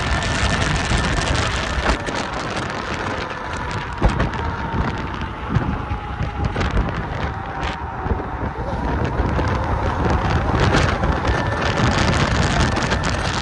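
Kaabo Wolf King GT 72-volt electric scooter being ridden at speed: a steady rush of wind and road noise over the microphone, with a high thin motor whine that dips in pitch midway and climbs again. There are a few sharp knocks, one about four seconds in.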